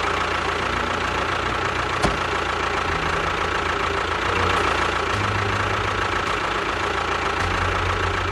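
An engine running steadily, starting suddenly just before and cutting off just after.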